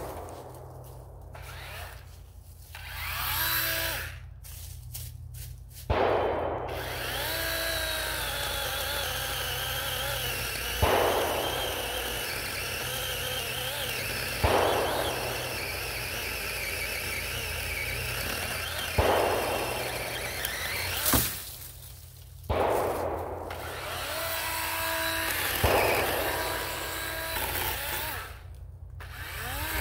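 DeWalt 20V XR battery chainsaw's electric motor running as it cuts saplings. It spins up a few seconds in and then runs steadily, with several louder surges. It cuts out briefly about three quarters of the way through and again near the end.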